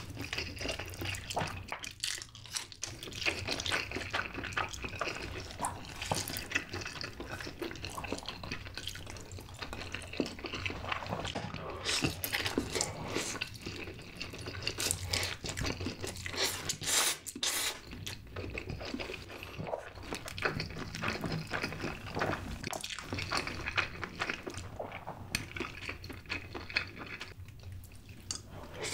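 Two people slurping and chewing sauced stir-fried instant noodles (Chapagetti black-bean noodles and Buldak spicy noodles), a steady run of wet slurps and small mouth smacks.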